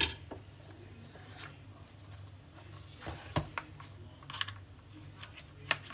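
Rigid cardboard gift boxes handled and opened by hand: a sharp tap at the very start, then scattered light clicks and rustles as a box lid comes off and its contents are touched.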